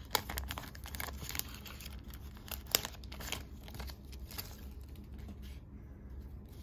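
Plastic trading-card pack wrapper crinkling and tearing open as it is unwrapped and handled, a dense run of crackling clicks that thins out and goes quieter near the end.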